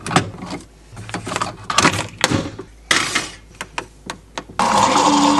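A series of knocks and clicks, like doors and objects being handled. About four and a half seconds in, a loud steady rushing noise starts.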